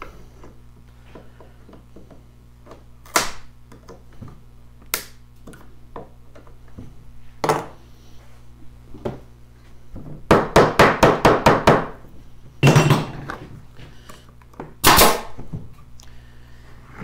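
Tools knocking on a wooden hive-frame: a few scattered single knocks, then a quick run of about ten taps around ten seconds in, followed by two louder knocks.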